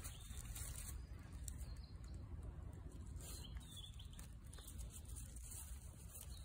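Shiba Inu sniffing and nosing through dry fallen leaves: faint rustling and sniffs over a low steady outdoor rumble.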